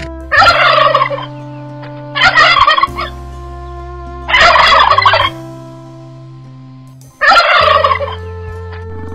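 A large bird calling four times, each call a loud, rough burst of about a second, over a steady background music bed.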